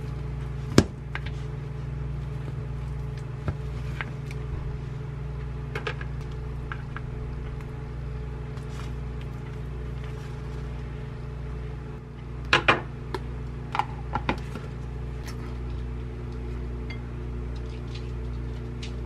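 Microwave oven running with a steady low hum. A few sharp clinks of a utensil against a bowl cut through it, one about a second in and a quick cluster about twelve to fourteen seconds in.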